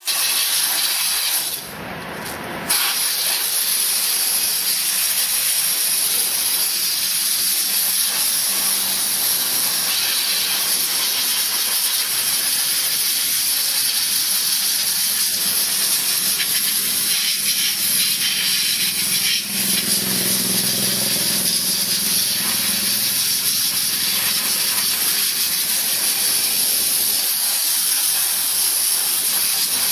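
Steam cleaner nozzle spraying a jet of steam onto a car engine: a steady hiss that eases briefly about two seconds in.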